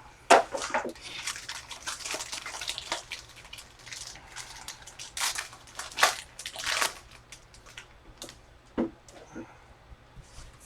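Trading cards being handled: a run of short rustling, sliding and flicking sounds as cards are moved and sorted by hand.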